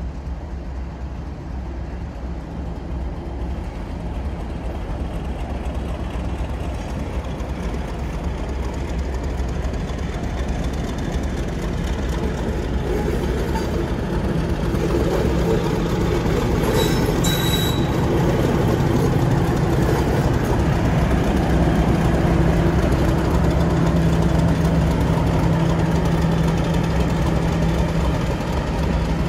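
GBRf Class 50 diesel locomotives' English Electric V16 engines working as the train draws closer and passes slowly, a steady low diesel drone that grows louder and peaks past the middle. A short high squeal, likely from the wheels, comes a little after halfway.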